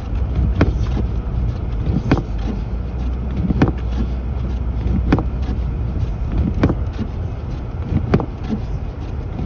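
Car cabin in a snowstorm: steady engine and road rumble, with the windshield wipers thumping at the end of each sweep about every second and a half.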